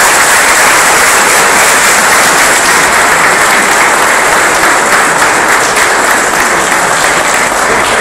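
A roomful of people applauding, loud and steady.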